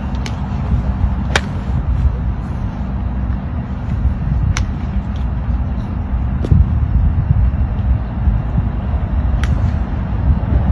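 Sharp clicks of golf clubs striking balls, the strongest about a second in, with several more spread through, over a steady low rumble.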